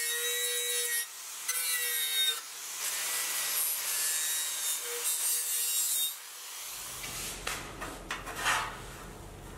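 Angle grinder with a wire wheel brush scrubbing rust and corrosion off a steel tail-light cover plate: a harsh scraping hiss over the grinder's steady whine. The brushing stops about six seconds in, leaving a quieter low hum with a few scratchy strokes.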